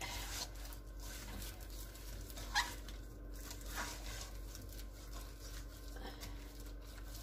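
Gloved hands tossing chicken wings in a thick, sticky molasses and brown-sugar marinade in a stainless steel bowl: soft wet squishing and patting, with one sharper click about two and a half seconds in.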